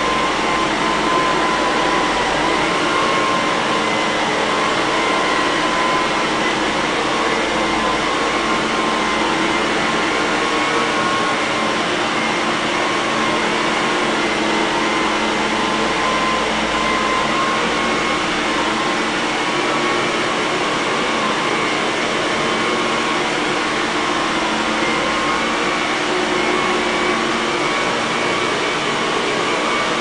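Electrolux Olympia One (1401-B) canister vacuum cleaner running steadily, a constant motor whine with a clear high tone over the rush of airflow.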